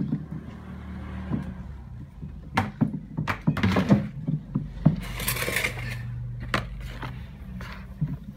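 Liquid soap mixture being stirred with a stick in a plastic basin: irregular knocks of the stick against the basin with swishing of the liquid, and a hissier stretch about five seconds in, over a steady low hum.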